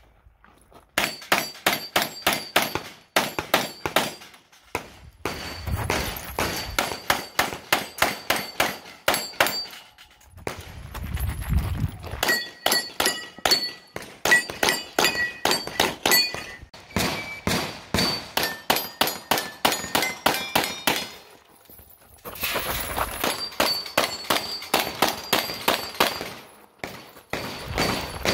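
Rapid pistol fire at steel plate targets, about three or four shots a second in strings separated by brief pauses, the steel ringing with a clang on the hits.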